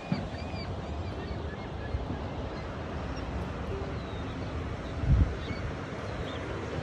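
Wind buffeting the microphone outdoors, a steady low rushing, with faint high chirps and one low thump about five seconds in.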